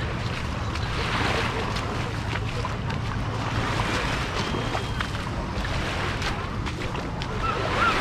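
Beach ambience: surf on the shore and wind on the microphone, steady throughout, with faint distant voices.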